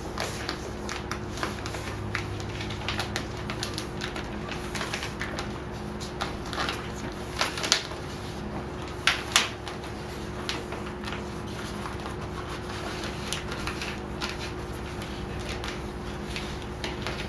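Backing paper being peeled off a vinyl grill-wrap decal held on transfer tape: irregular crackling and rustling of paper, with a few louder crackles around the middle, over a steady low hum.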